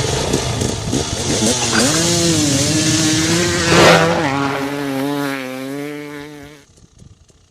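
Engine revving sound played as a notification tone: a rough, noisy rev whose pitch dips and climbs, holds with a wobble, drops lower a little past halfway, then fades out about a second before the end.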